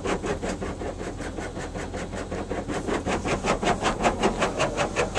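High-pressure water jets from a Ryko car wash's rocker panel blaster spraying against the car's side, heard from inside the cabin: a rapid, even pulsing of several beats a second over a steady low machine hum.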